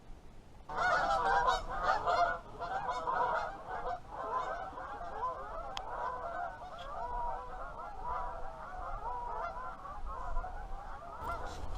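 A flock of geese calling: many overlapping honks that start about a second in, are loudest for the first two seconds, then carry on more softly.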